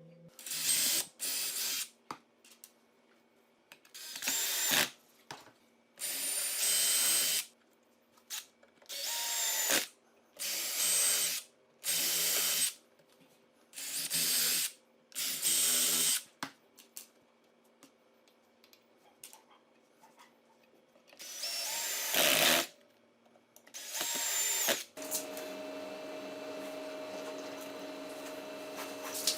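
Electric drill run in about a dozen short bursts of a second or so each, started and stopped with quiet gaps between. Near the end it gives way to a quieter, steady hum.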